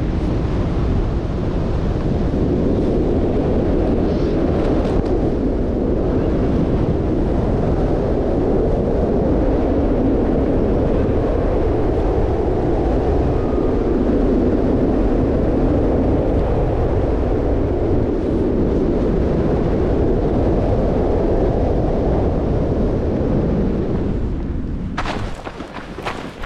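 Wind rushing over the camera microphone in wingsuit flight: a loud, dense, low rumble. Near the end it dies away, leaving a few sharp knocks and rustles.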